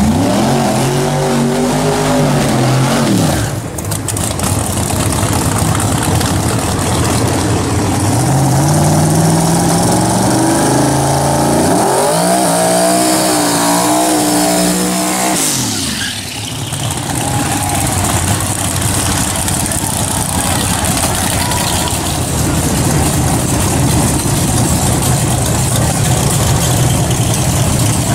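Fox-body Mustang drag car's engine revving hard through a burnout. Its pitch climbs and falls in the first few seconds, climbs again and holds high for several seconds mid-way, then cuts off sharply. A steady loud engine rumble follows.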